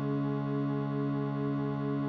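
Free-reed box instrument holding a steady sustained drone chord, unbroken and even in level.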